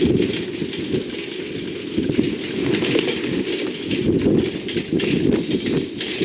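Strong, gusty wind buffeting the microphone in a dust storm, with a crackling hiss riding above the low rumble of the gusts.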